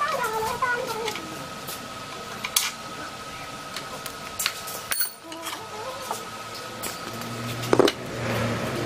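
Scattered metal knocks and clinks as the rusty air compressor's electric motor is worked loose and lifted off the tank, with one loud knock near the end.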